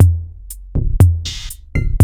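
Electronic background music built on a drum-machine beat: a deep kick with a long low boom about once a second, and crisp hi-hat and snare hits between the kicks.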